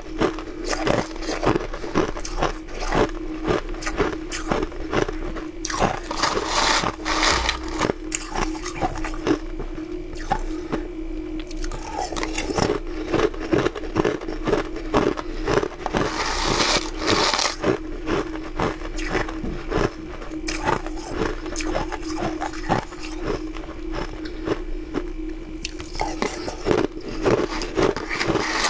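Close-up crunching and chewing of mouthfuls of icy frozen food, a rapid run of crisp crunches, with a spoon scraping in a plastic tub. A steady low hum runs underneath.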